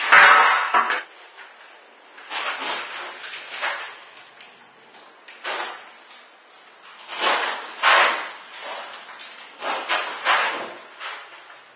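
Irregular scraping and rubbing strokes on a hard tiled floor, each lasting under a second. The loudest come right at the start and about seven to eight seconds in, with several fainter ones between.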